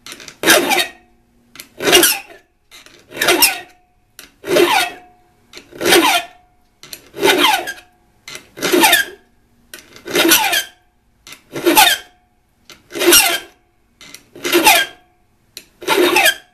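Safe-edge file rasping across the cutting edge of a steel spade drill bit in a steady rhythm of single strokes, about one every second and a half, some ending in a short metallic ring. The edge is being sharpened to a 10 to 15 degree angle.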